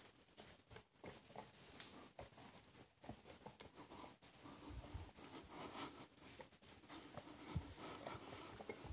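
Faint scraping and small metal clicks of a tubular box spanner turning a nylon-insert lock nut down a threaded shaft, the nut stiff to turn, with a couple of soft low thumps midway and near the end.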